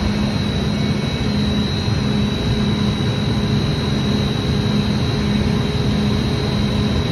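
Steady drone of running chiller plant machinery, with a thin high whine over it and a low hum that swells and fades about once a second.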